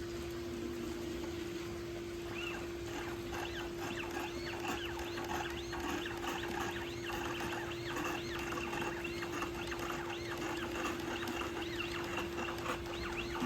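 Rapid, repeated chirping calls from animals, most likely small birds, starting a couple of seconds in, over a steady low hum.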